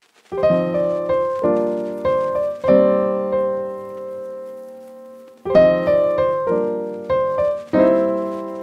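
Background solo piano music: chords struck and left to ring, with one chord held and fading out about three seconds in, then more chords from about five and a half seconds.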